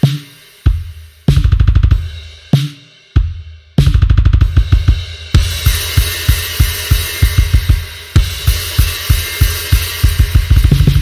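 Sampled acoustic drum kit from the Drum Daddy Kontakt library: scattered hits and two fast runs of low drum strokes, then from about halfway a steady kick-and-snare beat with cymbals ringing over it.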